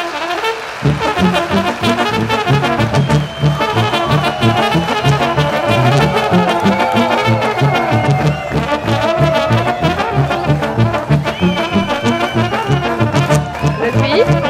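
Background music led by brass instruments, with a steady pulsing bass beat that comes in about a second in.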